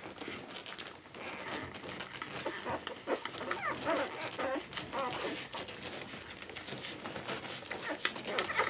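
Newborn retriever puppies nursing at their mother: a stream of small wet suckling clicks and smacks, with a few short high squeaks about three and five seconds in.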